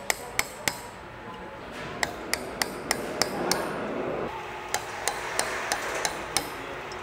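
Light hammer taps on an Allen wrench set in the gear ball housing clamp bolts of a progressive cavity pump, a metal-on-metal tap with a short ring. They come in three runs of about three taps a second, with pauses between. The taps snug the bolts tighter than the hand alone can turn them.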